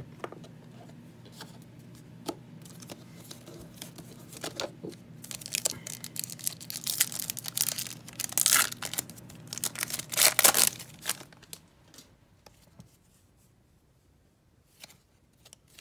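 Foil wrapper of an Upper Deck hockey card pack being crinkled and torn open by hand: a run of crackling rips, loudest around seven and ten seconds in, that dies away about eleven seconds in.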